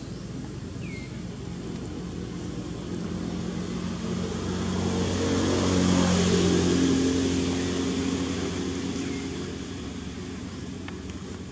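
A motor vehicle passing by: its engine hum grows to its loudest about six seconds in, then fades away.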